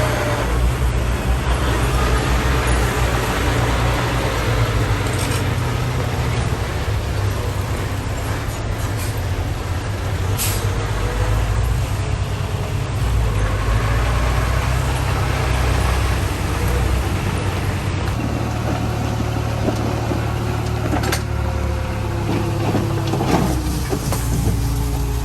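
Diesel engines of heavy earthmoving machinery running continuously, the engine note swelling and easing as the machines work.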